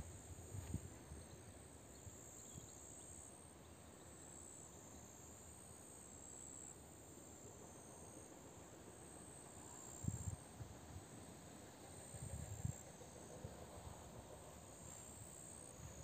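Faint, steady high-pitched chirring of insects such as crickets, with a few dull low thumps about two-thirds of the way through.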